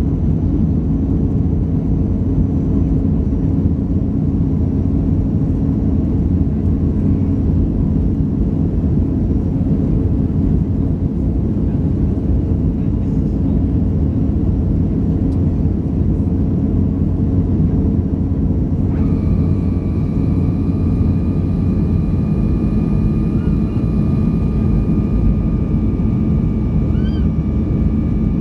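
Cabin noise of a Boeing 737-300 climbing after takeoff: the steady low rumble of its CFM56 engines and the rush of air, heard from a seat over the wing. A steady high tone comes in about two-thirds of the way through and holds.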